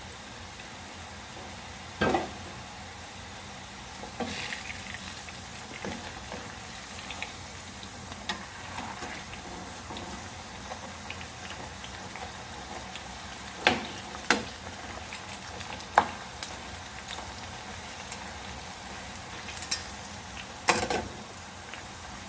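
Potatoes frying in hot oil, a steady sizzle, with a few sharp clinks of a utensil now and then.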